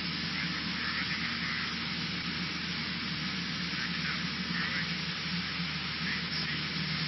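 Steady in-flight cabin noise of a Cessna 152: its four-cylinder Lycoming engine and propeller droning evenly under a hiss of airflow.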